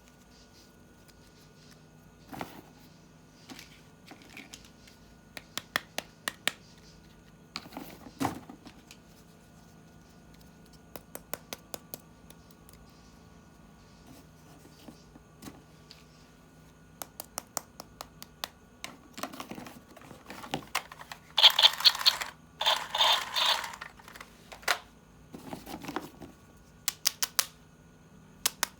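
Hands unboxing plastic toys: scattered sharp clicks and taps of plastic parts being handled, with a loud rustling burst of packaging about 21 seconds in that lasts a couple of seconds.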